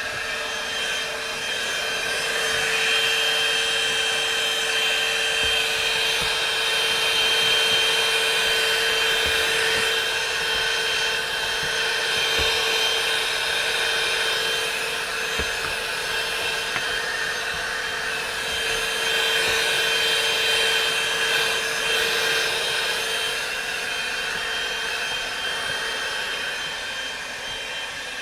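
Einhell TE-VC 18 Li cordless handheld vacuum cleaner running steadily: a motor whine over rushing air that swells and dips in loudness as it is used.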